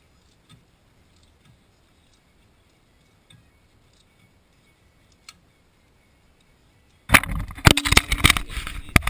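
A few faint small clicks, then, about seven seconds in, loud knocking and rubbing right on the microphone as the camera is handled and moved.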